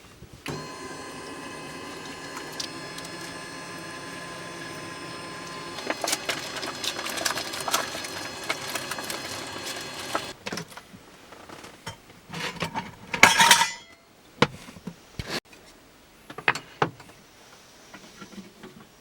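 A small motor runs steadily for about ten seconds and then stops, with clattering over its second half. Scattered clicks and knocks follow, with a short loud rushing burst about thirteen seconds in.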